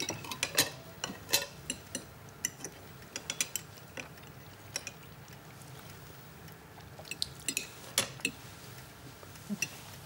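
A fork clinking and scraping on a china plate: scattered light clicks, most of them in the first few seconds and again around seven to eight seconds in.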